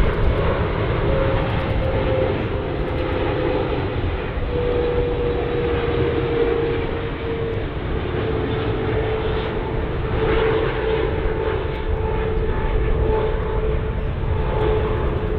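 Boeing 777-300ER jet airliner on final approach, its twin GE90 turbofan engines running with steady jet noise. A whine runs through it and slowly drops in pitch, and a fainter higher whine joins in the second half.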